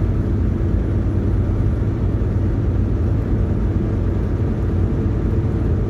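Steady low drone of a Volvo VNL860 semi-truck driving on the highway, heard inside the cab: the Volvo D13 diesel engine running with road noise underneath.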